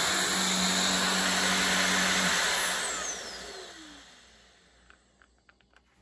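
LG CordZero cordless stick vacuum running on carpet with its powered nozzle, a steady whooshing motor noise with a low hum. A little over two seconds in it is switched off, and its motor whine falls in pitch as it spins down to quiet, with a few faint clicks near the end.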